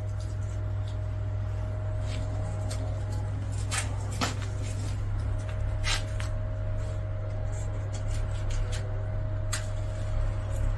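Scattered knocks and clinks of charcoal lumps being handled, over a steady low hum.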